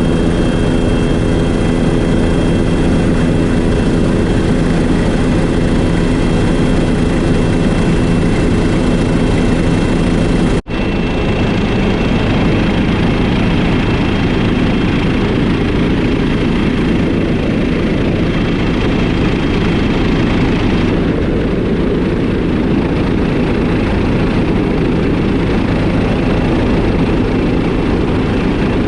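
Helicopter turbine and rotor running steadily and loudly. The sound breaks off for an instant about a third of the way through, then carries on as a rougher, noisier drone with fewer steady tones.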